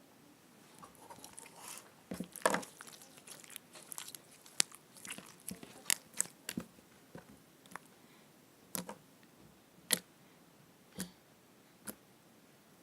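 Slime being squeezed and stretched by hand, giving sharp wet clicks and pops as air pockets burst: a quick run of them for several seconds, then single pops about once a second.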